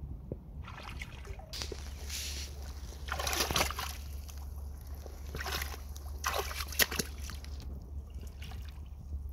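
Rubber wellington boots wading through shallow water, a splash and slosh with each step, about five steps.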